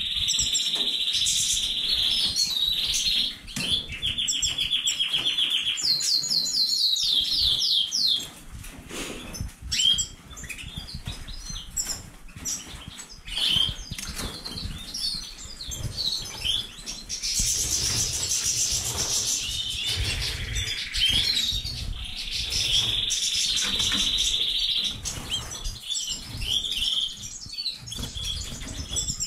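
Caged canaries and finches (goldfinches, Magellanic siskins) singing: several long, fast, buzzy trills with short twittering chirps in between, and wings fluttering.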